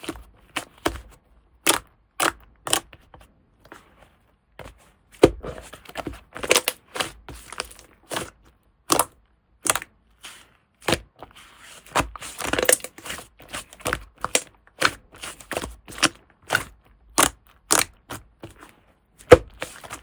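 Slime being squeezed and pressed by hand, giving irregular sharp pops and clicks, with denser crackling runs about a third of the way in and again past the middle.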